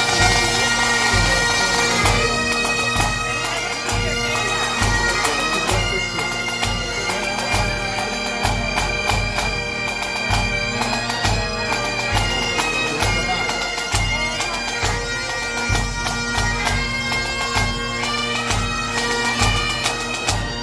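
Bagpipes playing a tune over their steady drones, with a drum beating a steady beat.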